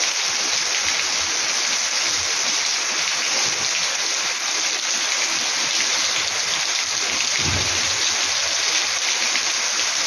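Steady heavy rain: an even, unbroken hiss of rain falling on grass and paving, with water running off the edge of a roof.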